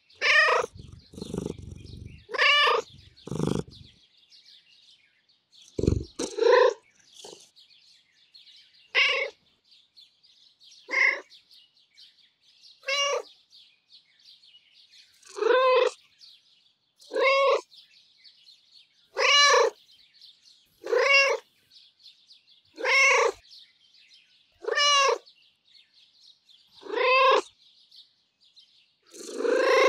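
Domestic cat meowing in a sweet, happy character: a few meows running into a low purr, then a few quick short meows, then a string of purry meows about two seconds apart.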